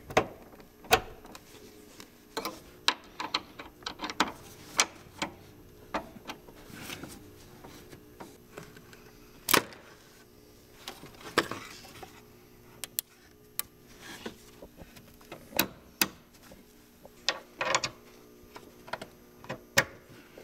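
Irregular clicks and light knocks of metal retaining clips and cooler hose fittings being handled and pushed into a car radiator, over a faint steady hum.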